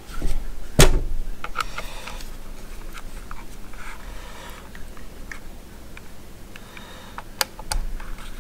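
Handling noise from a Klein pen-style voltage tester as its probes are set against a 120-volt plug: a sharp plastic knock about a second in, small clicks and rustles, then two more knocks near the end.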